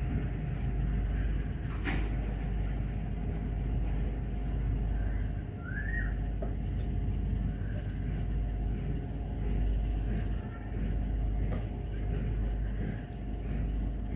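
A steady low rumble, with a few sharp clicks and small mouth noises from eating rice and curry by hand.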